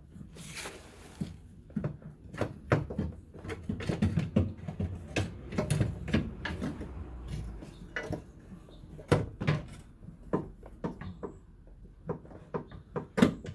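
Irregular knocks, clicks and clatter of a fuel filler neck and tools being handled and fitted into a car body, with a brief hiss about half a second in.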